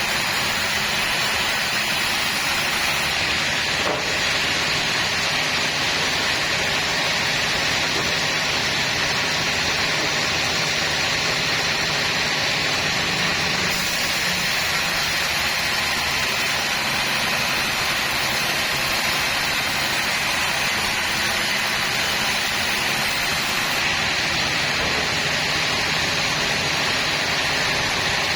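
Sawmill saw and its machinery running steadily, a continuous even machine noise with no break.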